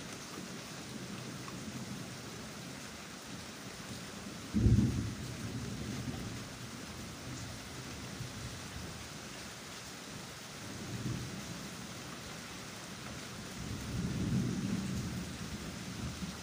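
Steady hiss of rain. A sudden low thump about four and a half seconds in, and softer low rumbles later on.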